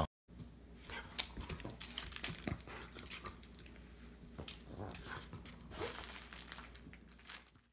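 French bulldog playing with a plush toy on a hardwood floor and rug: quiet, scattered taps and scuffs of paws and toy.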